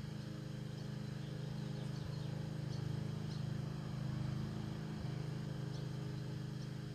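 A motor's steady low hum, holding several tones together, with faint short chirps now and then higher up.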